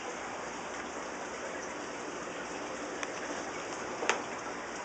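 Steady hiss of running, splashing water, with two light clicks about three and four seconds in.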